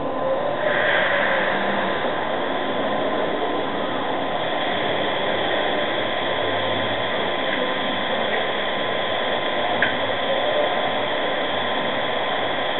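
Steady hiss from a small camera's microphone, with a thin steady whistle-like tone running under it.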